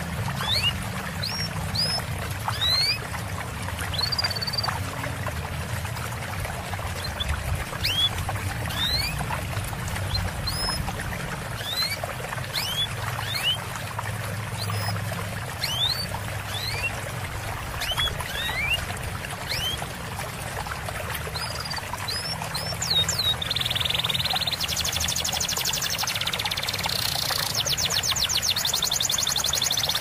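Trickling, gurgling water with short, high songbird chirps every second or so. About three-quarters of the way in, a fast, buzzy trill joins and the sound gets a little louder.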